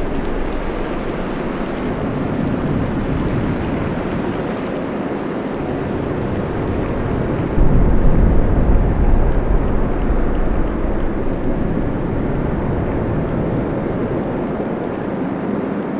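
Sea-storm ambience: a steady, dense roar of storm noise from wind, sea and rain. About eight seconds in, a sudden louder deep rumble comes in and slowly eases off.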